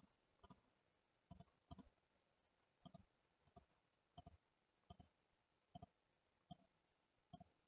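Faint computer mouse clicks, about eleven single clicks spaced roughly half a second to a second apart, selecting faces of a 3D model one by one.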